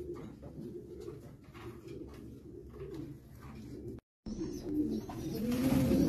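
Racing pigeons cooing, low and wavering, with repeated coos. The sound cuts out briefly about four seconds in, then the cooing comes back louder.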